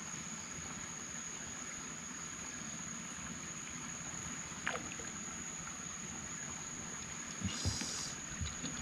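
Soft water lapping and trickling around a small wooden boat on a calm river, with a steady thin high-pitched whine throughout. A short chirp sounds about halfway through, and a brief splashy rustle with a couple of low knocks comes near the end.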